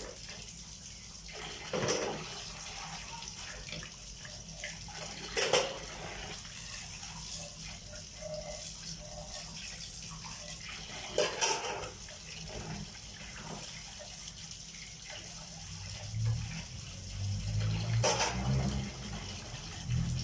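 Water running steadily from a wall tap into a basin of water while dishes are rinsed by hand, with four brief louder knocks from the dishware being handled.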